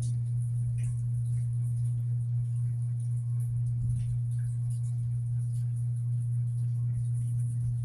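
A steady low hum holding one pitch, with a few faint ticks over it.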